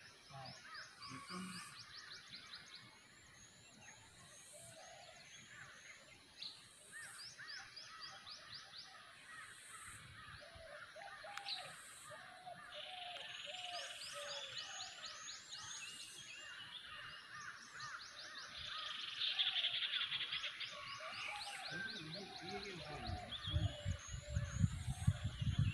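Birds calling in a forest: repeated trains of quick, high chirps and scattered lower calls over quiet background. A low rumble on the microphone builds near the end.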